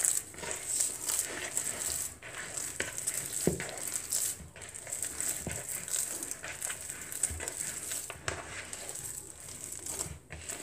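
Wet wholemeal and semolina sourdough dough being kneaded by hand in a plastic bowl: irregular sticky squishing and crackling as the fingers press and squeeze it, with a few soft thumps. The dough is wet and sticky while freshly added water is worked in.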